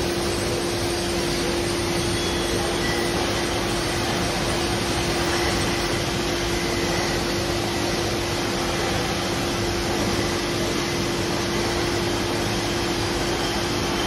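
Brewery bottling-line machinery and bottle conveyors running: a steady, even machine noise with one continuous humming tone under it.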